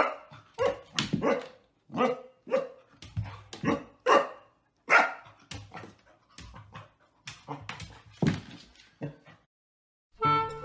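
A puppy barking over and over at its own reflection in a mirror: about fifteen short, sharp barks and yips at an uneven pace. They stop shortly before the end.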